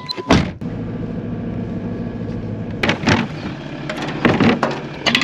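A vehicle door latch clicks open, then a steady engine hum runs under several sharp clunks of latches and lids being worked, in pairs about three, four and a half, and five seconds in.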